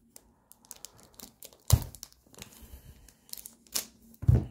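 Thin plastic film on a new Rubik's-type cube crinkling as it is handled and cut open with scissors. There are scattered crackles, a dull knock about a second and a half in, and a louder one near the end.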